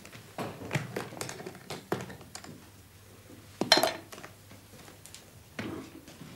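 Irregular knocks and clicks, as of footsteps and handling of a heavy cell door, with one much louder sharp clank a little past halfway through.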